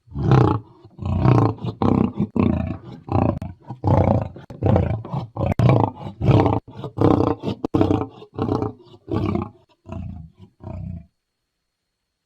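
Sharptooth, the tyrannosaur-like dinosaur's film sound effect: a series of about a dozen short, deep roars and growls in quick succession.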